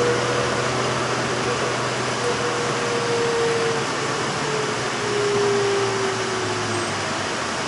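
Cabin noise of a city transit bus under way: a steady drone of engine and road noise, with a whine that comes and goes in three stretches, the last falling in pitch.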